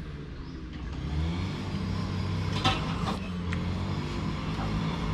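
Small petrol engine of a grass cutter running steadily nearby, its pitch rising a little about a second in.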